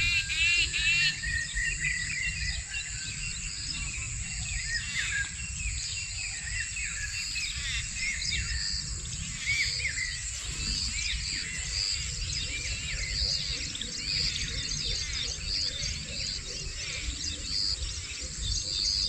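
Many birds chirping over one another in a chorus of quick, arched calls, with a steady high-pitched whine and a low rumble beneath.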